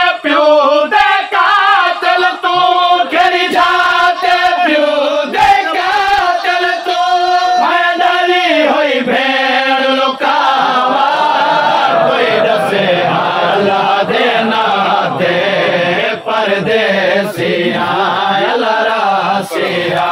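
A noha, a Shia mourning lament, chanted unaccompanied by men's voices: a lead reciter's pitched chant for the first half, then from about ten seconds in a crowd of mourners chanting the refrain together. Scattered sharp slaps run through it.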